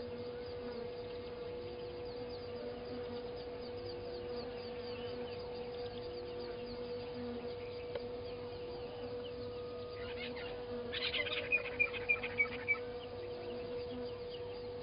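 Blacksmith lapwing calling: a quick run of five sharp, clipped notes about two-thirds of the way through. Behind it are faint chirps of small birds and insects and a steady low hum.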